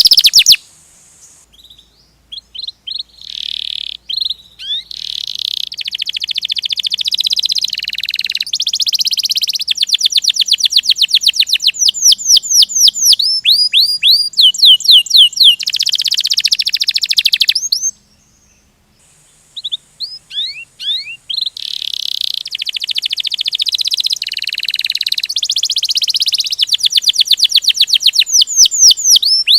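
Domestic canary singing its rolling song: long rapid trills and runs of quick, falling whistled notes, broken by two short pauses, one right near the start and one a little past halfway.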